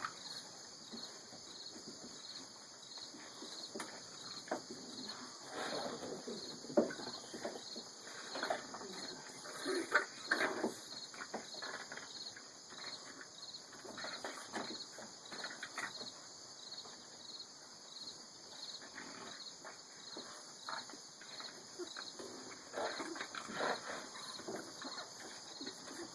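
Boston terrier puppies playing and tussling, making short scattered puppy noises, a few of them louder.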